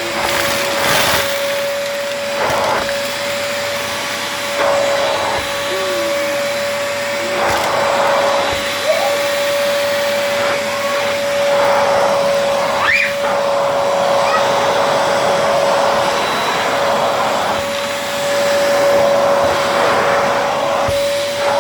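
Arzum Pronto Red AR4085 800-watt upright vacuum running with a steady whine, the rush of air swelling every few seconds as it is pushed over spilled dust and debris, with a sharp crackle about halfway through as something is sucked up.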